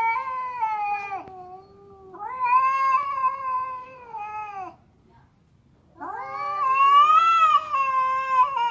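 Cats caterwauling in a standoff: long, drawn-out, wavering yowls, three of them with a short silence between the second and the third. This is the threatening yowl of a cat fight over who's boss.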